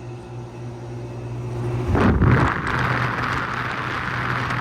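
Carrier Gemini Select commercial condensing unit running with a steady low hum. About two seconds in, a loud rush of air from its condenser fans comes in and stays.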